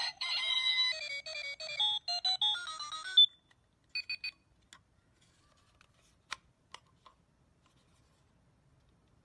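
Xinjia digital talking alarm clock playing a short electronic alarm tune, a stepped melody of single notes lasting about three seconds, followed about a second later by two short beeps. A few sharp clicks come from the plastic folding case as it is handled.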